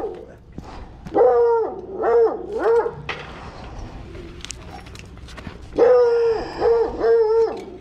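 A dog barking: two runs of three barks each, about four seconds apart.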